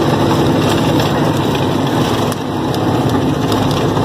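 Heavy truck's diesel engine running under way, heard from inside the cab as it drives on a rough dirt road. There is a brief dip in level a little past two seconds in.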